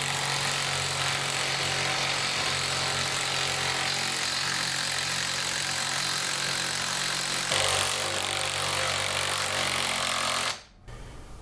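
Electric power tool running steadily as it tightens the vise's mounting bolts, with a brief rise in level near the end of its run. It cuts off suddenly about ten and a half seconds in.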